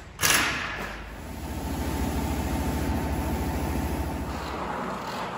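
Pneumatic impact wrench tightening a car wheel's lug nuts: it starts abruptly with a sharp burst, then runs as a rapid, steady hammering rattle for about four and a half seconds before stopping near the end.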